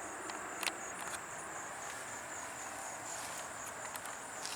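Steady high-pitched chirring of insects, crickets by its character, with a few faint clicks.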